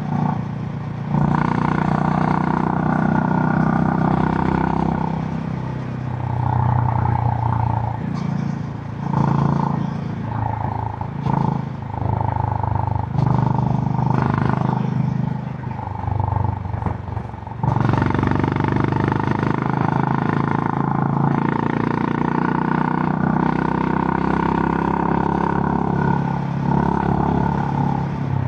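Honda GB350 (H'ness CB350) air-cooled single-cylinder engine running through its stock exhaust while riding. The engine note dips and picks up several times through the middle, then holds steady near the end.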